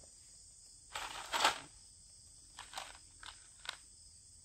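Steady high-pitched insect chorus, with a short rustle about a second in and a few faint clicks and rustles later, from handling at the rifle.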